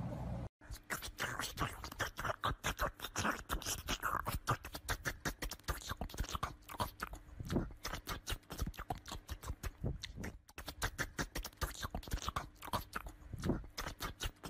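Rapid, irregular scratching and tapping, several strikes a second, from a small dog's claws pawing at a wooden door.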